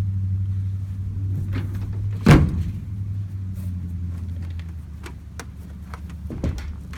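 A vehicle engine idling with a steady low hum that fades away over the last couple of seconds. A single loud knock about two seconds in, like a car door shutting, with a few lighter clicks and knocks after it.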